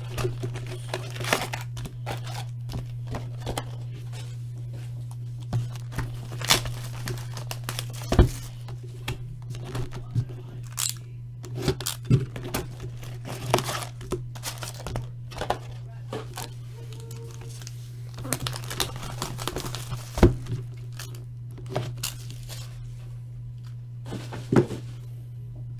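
Plastic wrapping on trading card boxes crinkling and tearing in irregular bursts, with scattered sharp clicks and knocks of handling, over a steady low hum.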